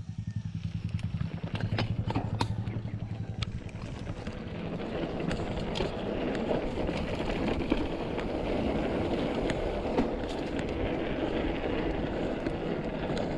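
Mountain bike rolling fast over a dirt trail: a continuous rough rumble of knobby tyres on dirt and the frame rattling, with sharp clicks and knocks from bumps. A low, rapid pulsing buzz is on top for the first few seconds and fades out about four seconds in.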